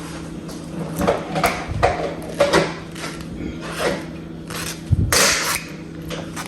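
Scattered knocks and clinks of dishes and utensils being handled during a meal, a cluster of them about five seconds in, over a steady low hum.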